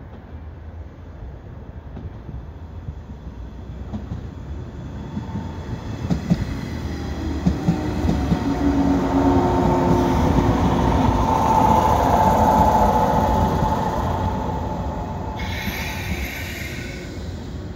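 JR West 117 series electric multiple unit pulling into a station and slowing to a stop. Its running noise grows as it approaches and passes close by, with wheels clacking over rail joints, then dies away as it slows. A short high hiss comes near the end.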